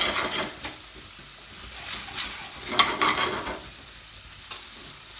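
Spatula stirring and scraping spices and onion in a hot aluminium pan, with the oil sizzling; stirring comes in two bursts, at the start and again about three seconds in, with a faint sizzle between. The curry powder is being fried to cook the spice out.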